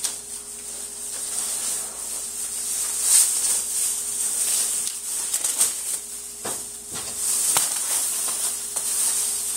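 Packaging rustling and crinkling as a large boxed TV is unpacked, with a few sharp clicks and knocks along the way.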